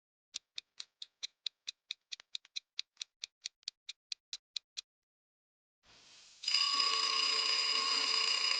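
Quiz countdown timer sound effect: clock-like ticking, about four to five ticks a second, for roughly four seconds, then a short pause. About six and a half seconds in, a steady sound effect with several held tones begins and carries on.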